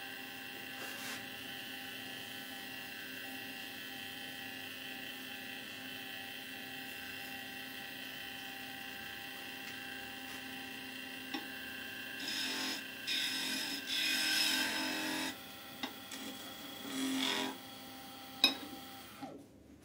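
Small wood lathe running with a steady motor hum, a turned wooden spindle spinning between centres. From about twelve seconds in come several louder rough rubbing passes as finish is rubbed onto the spinning wood, then a sharp click, and the sound cuts off just before the end.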